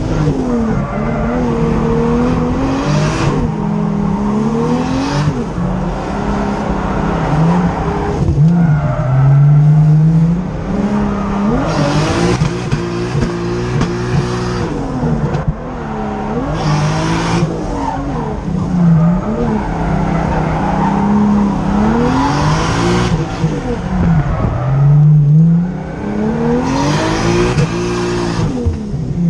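Turbocharged RB25DET inline-six in a Nissan S14 240SX revving up and down over and over through drifts, heard from inside the cabin, with tire squeal coming and going.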